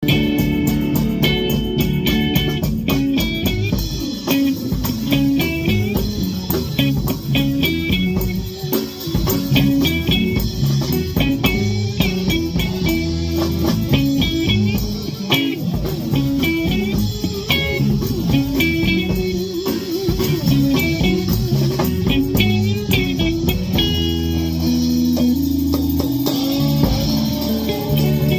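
Live band playing blues-style music, guitar lines over bass guitar. About 24 seconds in, the bass settles into long held notes.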